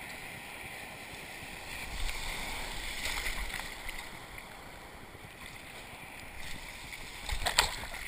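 Ocean surf washing and churning around an action camera at the water's surface. It grows louder about two seconds in, and a sharp splash hits the microphone near the end.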